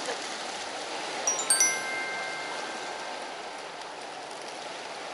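A bright chime rings about a second in, two quick strikes whose clear tones hang on for a couple of seconds, over the steady wash of waves.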